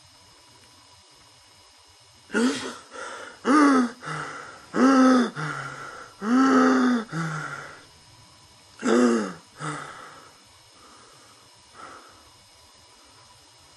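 A person's voice making a series of five drawn-out wordless vocal sounds, each rising and falling in pitch and followed by a shorter, lower one, between about two and ten seconds in; a faint hiss underneath.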